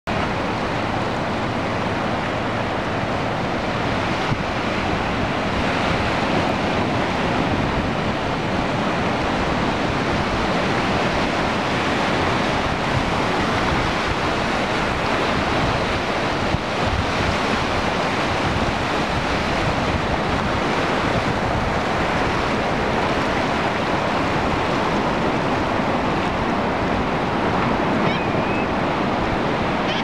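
Steady surf washing on a sandy beach, mixed with wind buffeting the microphone.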